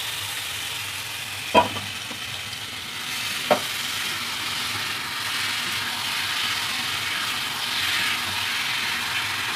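Marinated chicken frying in hot oil and spice masala in a black kadai: a steady sizzling hiss. A spatula knocks on the pan twice, about a second and a half in and again two seconds later.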